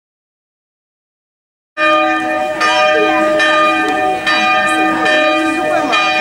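Dead silence, then church tower bells start ringing about two seconds in, a loud peal of repeated strikes whose long tones hang and overlap.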